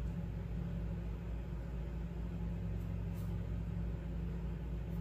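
Steady low background hum, with a few faint light snips of small scissors trimming a thin peeled nail-polish film around three seconds in.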